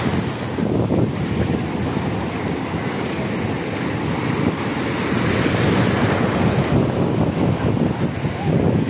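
Ocean surf washing onto the beach, a steady rush of breaking waves, with wind buffeting the microphone.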